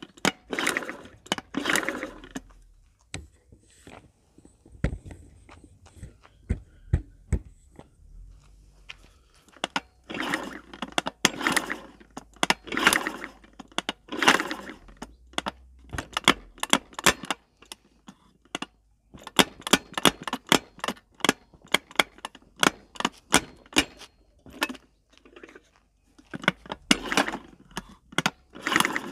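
Metallic clicking and clattering from a Honda Tact AB07 scooter engine worked by hand, in bursts repeating every second or so. It fits repeated strokes of the kick-start lever, with the ratchet clicking and the engine turning over.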